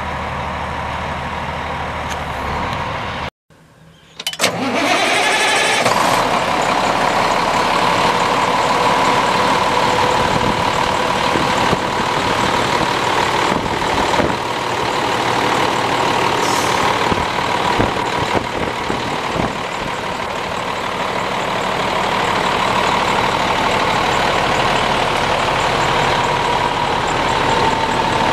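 A 2007 International 9200i's Cummins ISM diesel engine idling steadily. The sound drops out briefly about three seconds in. After that the engine is heard up close at the open engine bay, with a short rush of hiss and then a steady whine over the idle.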